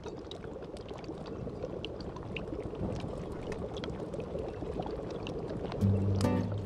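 Herbal broth with lemongrass at a rolling boil in a wok: steady bubbling with many small pops. Music comes in near the end.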